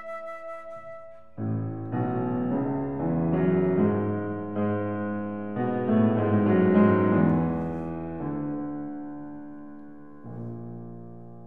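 Yamaha grand piano playing a solo passage of classical music: full chords enter about a second and a half in, swell and slowly die away, and a softer chord enters near the end. At the start, the flute's last held note fades out.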